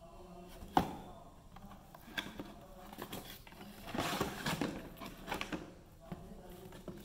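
A cardboard box being handled and the Tower of Tracks cat toy's hard plastic track rings lifted out of it. There is a sharp knock about a second in, then cardboard rustling and scraping and plastic clatter, busiest around four seconds in.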